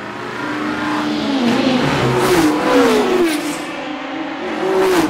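Several racing car engines coming closer and passing at high revs, their pitch rising and falling again and again. The sound grows louder over the first couple of seconds.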